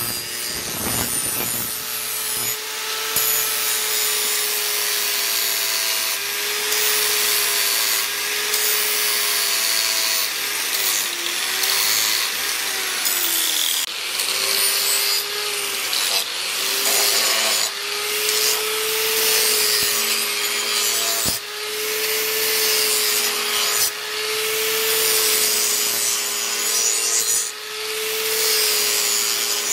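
Bench-mounted angle grinder with an abrasive disc running while a leaf-spring steel knife blade is ground against it: a steady motor whine that sags in pitch several times as the blade is pressed in and recovers, over the harsh hiss of grinding steel.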